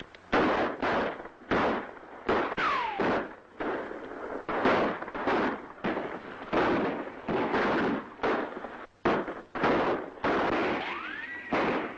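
A film-soundtrack gunfight: more than a dozen gunshots fired in a ragged exchange, each with a short echoing tail. Two ricochet whines cut through, one falling in pitch about three seconds in and one rising near the end.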